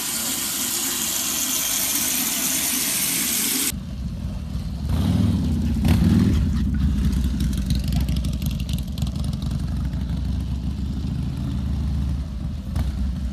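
A steady hiss for the first few seconds, then cut off for a motorcycle engine running with a low, fast pulse, revved up louder about two seconds after it starts and then settling back to a steady run.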